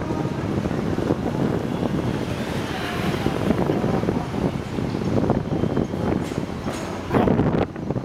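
Hong Kong double-decker tram running on its street rails, its steel wheels rumbling and clacking over the track crossings and joints of a junction, with a louder clatter about seven seconds in. Wind buffets the microphone throughout.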